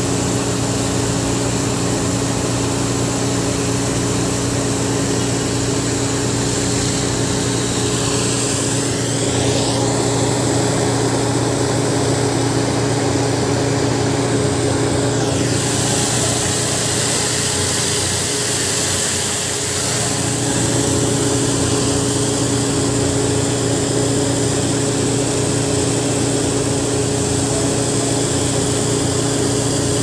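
An engine running steadily at an even pitch, with a constant drone.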